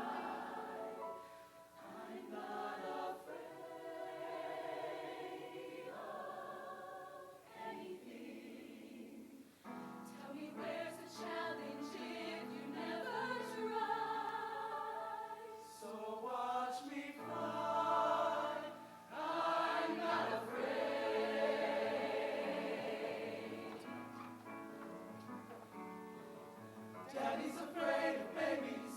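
High school show choir singing a song in many-voiced harmony.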